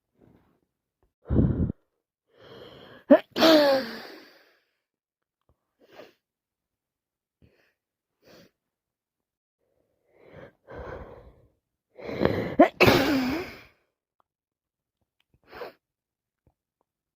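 A woman with a heavy cold sneezing twice, about nine seconds apart. Each sneeze comes after a catching inhale, and short sniffles and breaths fall between them. A short low thump comes just before the first sneeze.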